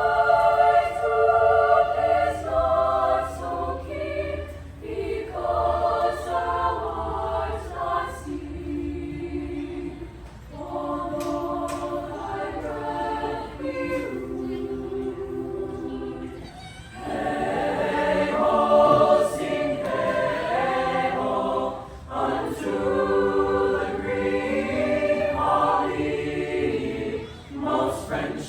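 Mixed choir singing in several-part harmony, in sustained phrases with short breaks between them and a louder swell about two-thirds of the way through.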